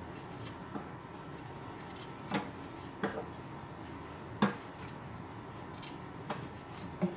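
Kitchen knife clicking and clinking lightly as ginger is peeled with its blade, about half a dozen short, irregularly spaced clicks.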